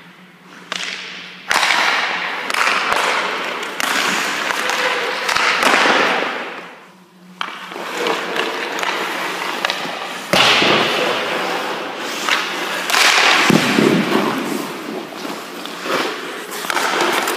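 Hockey skate blades and goalie pads scraping across the ice in a series of sharp bursts that each fade over a second or two, with occasional thuds.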